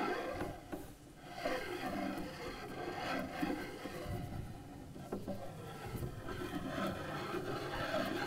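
Cello bow drawn back and forth in uneven strokes, giving a raspy scraping and rubbing sound rather than clear notes.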